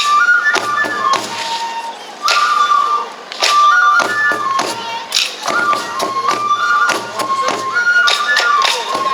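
Shishi odori deer-dance music: a transverse bamboo flute plays a short, repeating stepping melody over sharp, irregular drum strikes.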